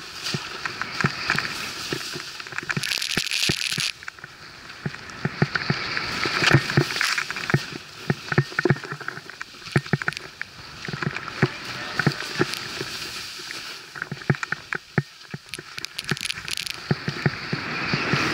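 Skis swishing through deep powder snow: a hiss that swells and fades with each turn, every two to three seconds, with frequent small knocks from the skis and gear. A brighter burst of hiss comes about three seconds in.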